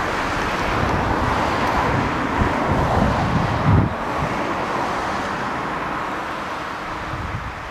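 Wind buffeting the microphone in low gusts, strongest a few seconds in, over a steady rushing noise.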